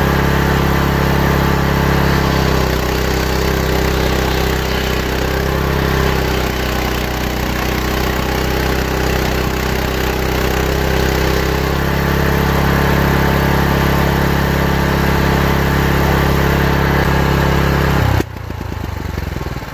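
Small engine driving a table saw's large circular blade, running steadily as a santol wood board is ripped lengthwise into a plank. A little before the end the engine is shut off and the sound drops sharply, slowing as it winds down.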